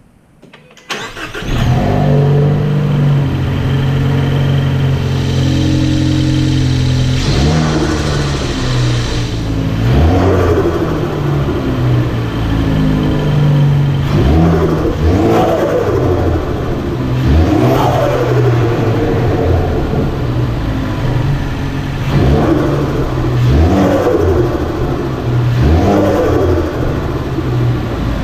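Ford Focus ST turbocharged engine starting about a second in and idling, then revved about half a dozen times. Each rev rises and falls away, with the turbo fluttering (a rapid 'tututu') as the throttle closes.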